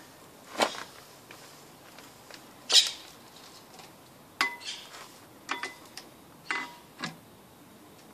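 Hard metal clinks and knocks, about eight, as a clutch pressure plate is set onto the flywheel over its locating dowels; several ring briefly with a clear metallic tone. The loudest knock comes almost three seconds in.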